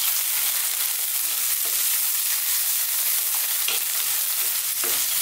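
Chopped onion, garlic and ginger sizzling in hot oil in a nonstick frying pan while a wooden spatula stirs them: a steady hiss with a few brief clicks.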